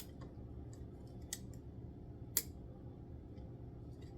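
Two sharp clicks of small parts and packaging being handled and pressed into place, over a steady low hum.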